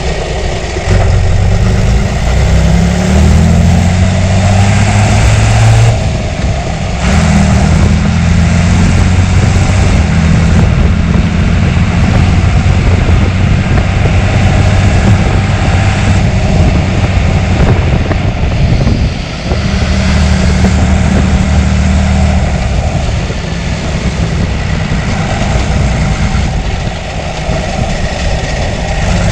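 John Deere 3350's six-cylinder diesel engine running, its pitch climbing as the revs rise in the first few seconds. It drops off briefly about six seconds in, then runs on steadily with small changes in engine speed.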